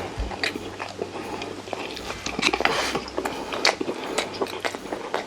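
A person eating rosé-sauce braised chicken close to the microphone: chewing with irregular wet mouth clicks and smacks.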